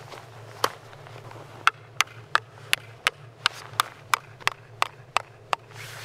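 Metal tent stake being hammered into the ground: one blow, then a quick run of about a dozen sharp strikes, about three a second.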